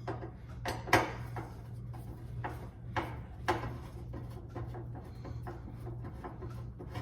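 Scattered light clicks and knocks of hand tools and metal parts being handled on an electric range's back panel as it is unscrewed and worked loose, the sharpest knock about a second in, over a steady low hum.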